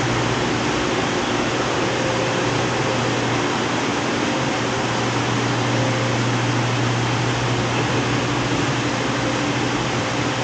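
Steady hum and hiss of a supermarket's refrigeration and ventilation equipment: an even hiss with a low machine hum underneath.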